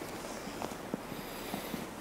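Steady outdoor background noise with faint, irregular small clicks and a brief swell of hiss near the end.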